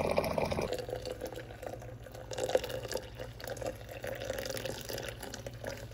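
Water pouring onto ground coffee in a brewer, cutting off sharply less than a second in, followed by fainter trickling and drips.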